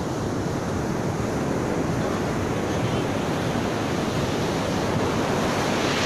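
Ocean surf breaking and washing up a sand beach: a steady, even rush of waves.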